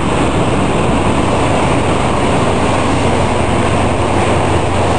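Ocean surf breaking on a sandy beach: a loud, steady roar with a heavy low rumble.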